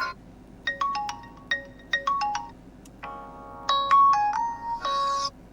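VIVO Y31 ringtone previews: a short melody of bell-like chiming notes plays and stops. About three seconds in, a different, fuller ringtone starts and cuts off abruptly shortly before the end.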